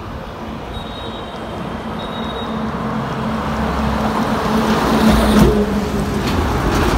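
Heavy diesel lorries driving past on a highway, engine hum and tyre noise growing louder as they approach and pass close, loudest about five seconds in.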